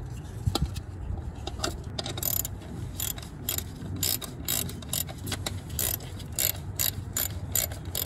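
Hand ratchet clicking about three times a second, starting about two seconds in, as the long hold-down bolts of a new distributor cap are turned in.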